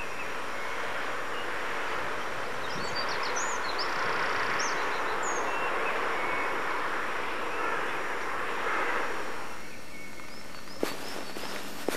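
Steady outdoor hiss of distant town noise, with a few short high bird chirps in the middle. Near the end the hiss drops away and footsteps on stone paving begin.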